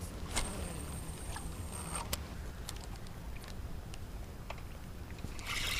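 A cast with a spinning rod and reel: a click, then a thin high whine for about a second and a half as line pays off the spool, ending in a sharper click, followed by faint clicking as the reel is cranked. Steady wind rumble on the microphone throughout.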